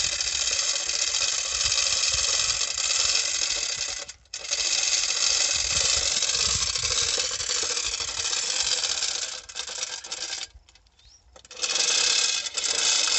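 Steel lifting chains clinking and rattling continuously as they are worked by hand around a wooden lever rig to hoist a submersible borewell pump. The clatter stops briefly about four seconds in and again for about a second near the end.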